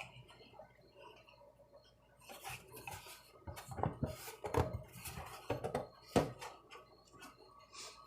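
Light metallic clinks and knocks of metal being handled, scattered over a few seconds, the loudest about six seconds in.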